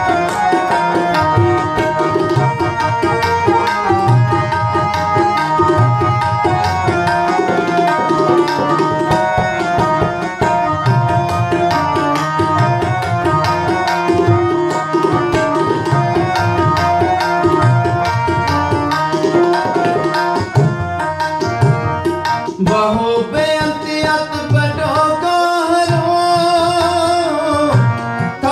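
Kirtan music: tabla playing a fast, dense rhythm under steady held harmonium notes. A voice comes in singing in the last few seconds.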